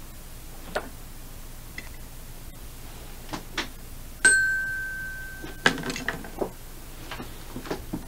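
A single bell-like ding, one clear tone struck once about halfway through, ringing about a second and a half before a click cuts it off. Scattered small clicks and knocks come before and after it over faint tape hiss and hum.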